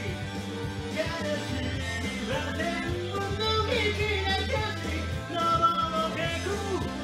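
Rock song sung in Japanese by a self-taught amateur cover singer over a band backing track with guitar and a steady bass line. The singer describes their own voice as throaty, nasal and strained.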